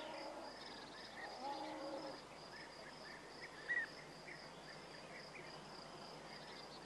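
Faint outdoor ambience: a steady high insect trill, like a cricket's, with scattered faint short chirps and one soft knock a little after halfway.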